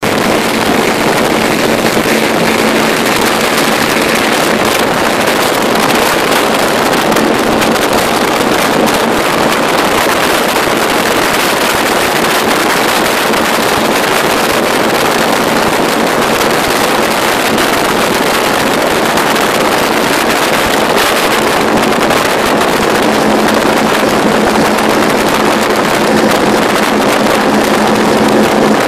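Offshore powerboats running flat out side by side: a loud, steady engine drone over rushing water and spray, with wind buffeting the microphone.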